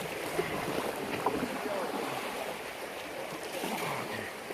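Fast-flowing river water rushing and splashing around an inflatable kayak, a steady noisy wash.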